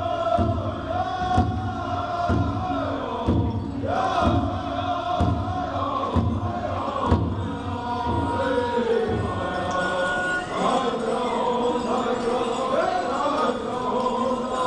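Powwow drum group singing a chant in high, falling phrases over a large shared drum struck in a steady beat, about one stroke a second.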